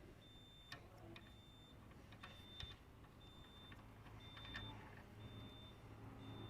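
Faint electronic beeping: a short high-pitched beep about once a second, with a few faint clicks between the beeps and a low hum underneath.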